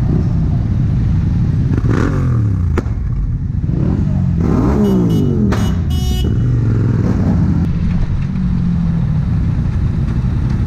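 Motorcycle engines running in slow city traffic, with a throttle blip that rises and falls about two seconds in and again near five seconds. A brief high-pitched tone sounds around six seconds in.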